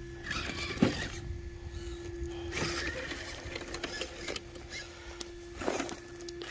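Redcat Gen8 RC rock crawler with a Hobbywing Xerun AXE 2800 kV brushless system crawling slowly over loose rock: a steady thin motor whine, broken by three bursts of tires scrabbling on dirt and stones, with a sharp knock about a second in.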